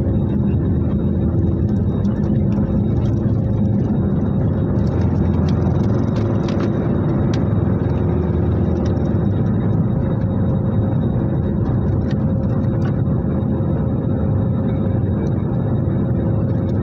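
Airliner's turbofan engines at takeoff thrust, heard from inside the cabin as a steady, loud, deep rumble with a faint whine, through the takeoff roll and liftoff. A few faint clicks about five to seven seconds in.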